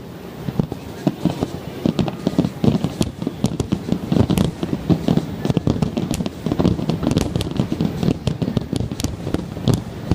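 Aerial fireworks shells bursting in rapid, overlapping succession, deep booms mixed with sharp cracks and crackling, with no let-up.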